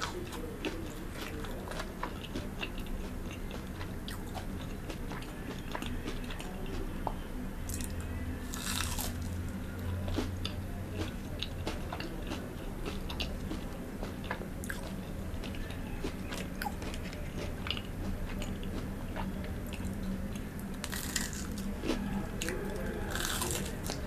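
Close-miked eating of crispy breaded fried food: biting, crunching and chewing with many small clicks, and louder crunchy bites about eight seconds in and again near the end.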